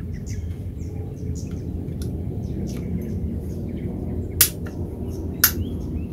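Outdoor ambience: a steady low rumble with small birds chirping, and two sharp clicks about a second apart near the end.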